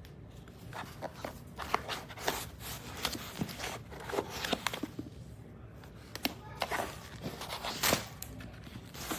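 Irregular clicks, taps and rustling of small objects being handled, with several sharper knocks along the way.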